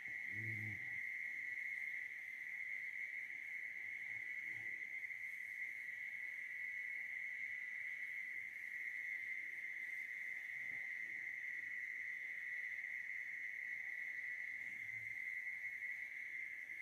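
A relaxed dog having its head massaged lets out a few soft, low groans, the clearest about half a second in and near the end. Under them runs a steady high-pitched drone.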